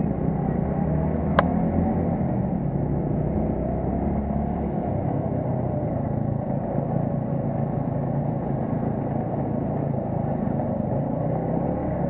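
TVS Apache motorcycle's single-cylinder engine running steadily at low road speed, with one sharp click about a second and a half in. The deepest part of the rumble eases about five seconds in.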